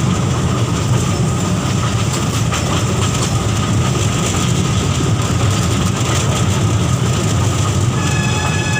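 Toy train running along its track: a steady low rumble with wheel clatter. A high-pitched tone with overtones joins near the end.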